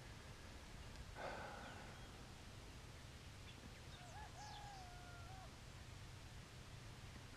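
Near quiet with a steady low rumble, a brief soft noise about a second in, and faint bird calls around four to five seconds in: a short chirp and a wavering whistled note.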